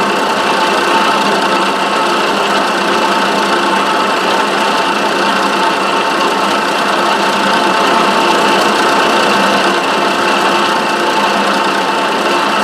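Milling machine running steadily, its two-flute end mill cutting a slot in Delrin plastic, with several steady whining tones from the spindle and drive.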